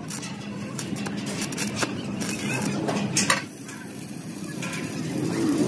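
Stick welding a small steel fitting onto the end cap of an air compressor tank: crackling from the arc mixed with light metallic clinks, quieter for about a second midway.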